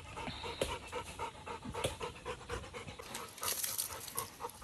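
Labrador retriever panting in quick, even breaths, about five a second.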